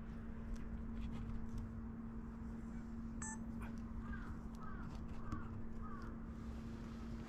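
A crow cawing four times in a quick series, after a single shorter call just before, over a steady low hum.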